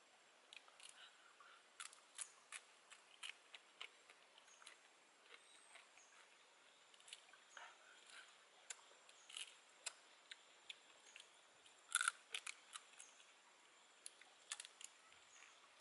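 Small, sharp, irregular clicks and cracks of a cooked crab's shell being broken apart by hand and bitten, with a louder cluster of cracks about twelve seconds in.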